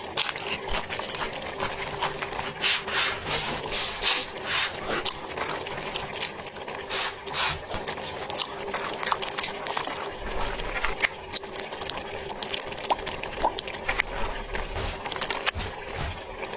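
Close-up eating sounds: irregular crunching and chewing of food, many short crackles one after another.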